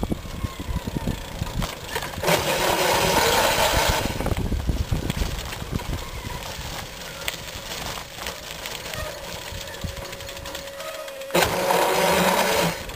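DC motor of a homemade electric bicycle on a MOSFET PWM controller, running and driving the bike with a rattly mechanical noise and bumps from rough ground. There are two louder, noisier surges, about two seconds in and again near the end, and a faint steady whine a little past the middle.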